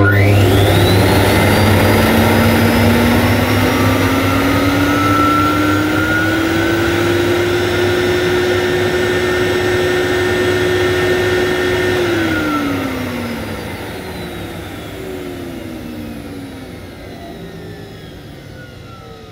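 Hoover Galaxy 1100SE cylinder vacuum cleaner motor switched on at full power with its hose sealed onto a suction gauge, its whine rising as it gets up to speed, then running steadily while pulling about 90 inches of water. About 12 seconds in it is switched off and the whine falls away as the motor winds down.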